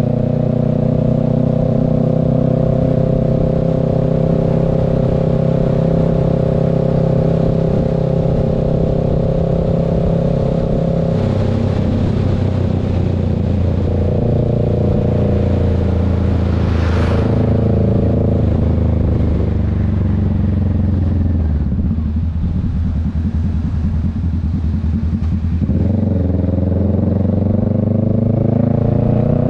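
Motorcycle engine running under way, steady at first, dropping in pitch about a third of the way in as the throttle eases, sagging slowly, then picking up again near the end. A passing vehicle gives a brief whoosh a little past the middle.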